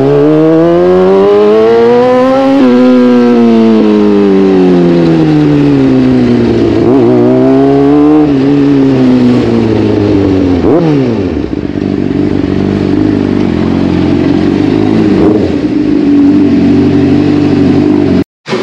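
Honda CBR600RR's inline-four engine heard on board while riding. It rises in pitch as the bike accelerates, falls back, and rises again. About eleven seconds in it drops away sharply and settles into a steady, lower running sound until it cuts off just before the end.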